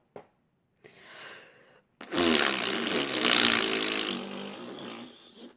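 A girl's voice: a breath in, then about two seconds in a long, loud, breathy groan of frustration lasting over three seconds, fading toward the end.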